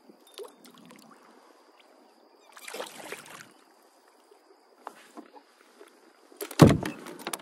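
A hooked fish splashing at the surface beside a kayak, with small clicks and knocks of fishing gear. There is one splash about halfway through, and the loudest splash and thump comes near the end as the fish is swung out of the water.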